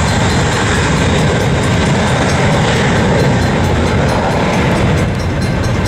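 Jet airliner's engines at takeoff power, a loud steady roar with a faint whine over it.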